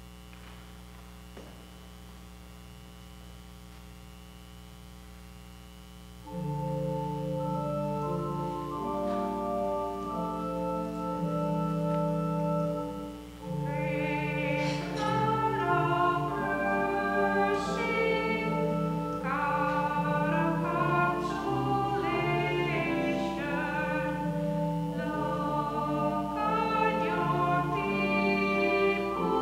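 Communion hymn: a faint hum, then held keyboard chords begin about six seconds in and singing joins at about fourteen seconds.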